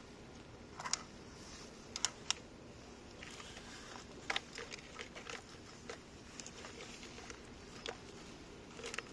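Plastic toy excavator being worked by hand: light, sharp plastic clicks and knocks, scattered and irregular, with a busier run of taps about halfway through.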